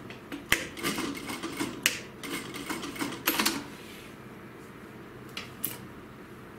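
Handling noise at a Juki industrial sewing machine: an irregular run of sharp clicks and the rustle of a stiff synthetic-leather piece being moved over the machine table, then two faint clicks near the end.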